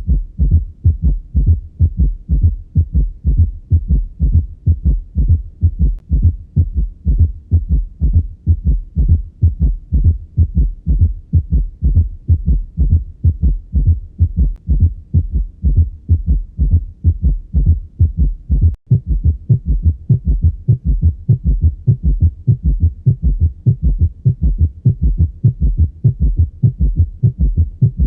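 Recorded heart sounds: a steady, even run of low thudding beats that continues through a very brief dropout about two-thirds of the way through.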